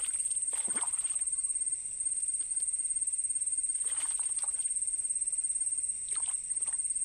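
An insect trilling steadily at a high pitch with a fast, even pulse. A few short noises cut across it about a second in, around four seconds in, and just past six seconds.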